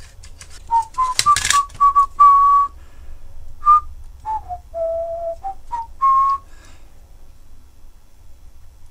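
A person whistling a short, wandering tune of single notes, some sliding between pitches, which stops after about six seconds. A few sharp plastic clicks come early, from the drill-bit case being handled.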